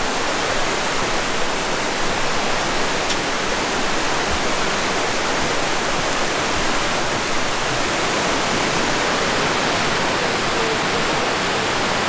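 Steady rush of fast-flowing water from Yudaki falls and the Yukawa river running beneath a wooden footbridge, with the river carrying a lot of water.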